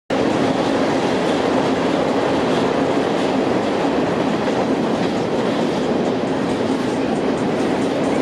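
A train passing close by: a loud, steady rumble and clatter of rail cars that starts abruptly and holds at an even level.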